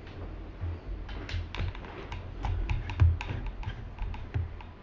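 Plastic hot-swap drive trays and metal parts of a Rosewill RSV-L4412 server case being handled: a dozen or more irregular light clicks and taps mixed with dull knocks, the loudest knock about three seconds in.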